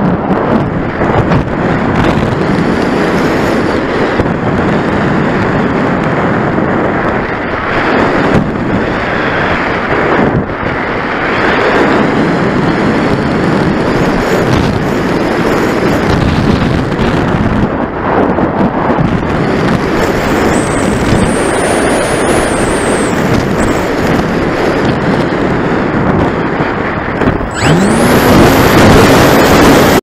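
Strong wind rushing over the onboard camera's microphone on a Passer-X RC electric glider in flight. A little over two seconds before the end, the glider's electric motor starts and spins up the nose propeller with a rising whine.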